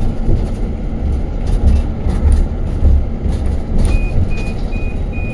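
Low, uneven rumble of a moving vehicle on the road. About four seconds in, four short high beeps sound at an even pace.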